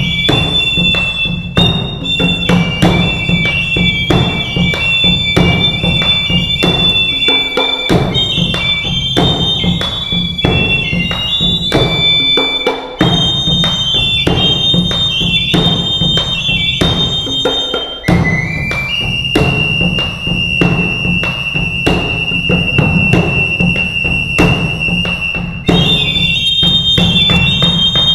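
Two small high-pitched duct flutes play a stepping melody in parallel over a large rope-laced double-headed drum beaten with sticks at about two strokes a second. About two-thirds of the way through, the flutes hold one long note for some seven seconds before the melody resumes.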